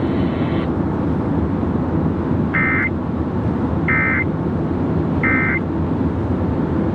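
Emergency Alert System end-of-message code on a vehicle radio: three short, high data bursts a little over a second apart, over steady road noise inside the vehicle.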